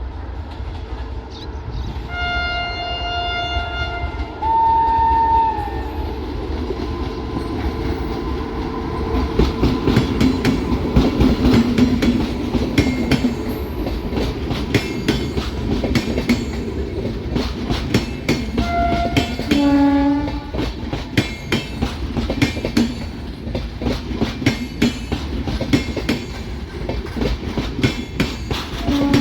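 Prayagraj–Bikaner Superfast Express running with a steady rumble. Its locomotive horn sounds a held blast about two seconds in, then a higher blast that slides down as it ends, two more blasts, a short one and a longer one, about two-thirds of the way through, and another starting at the very end. From about nine seconds in the wheels clatter rhythmically over the rail joints.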